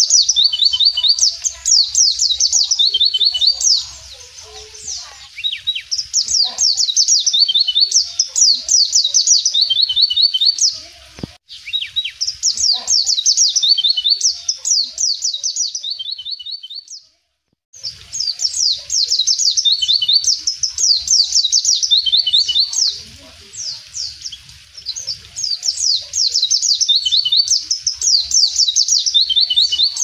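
White-eye (pleci) singing a rapid, high twittering song in repeated phrases of a few seconds each, with short pauses between. The sound drops out briefly a little past halfway.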